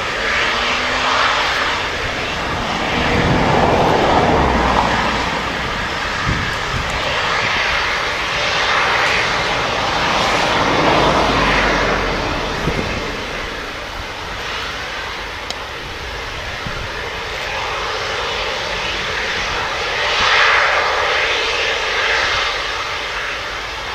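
Boeing 767-200ER's twin turbofan engines running on the ground at low power, a steady rushing noise that swells and eases a few times.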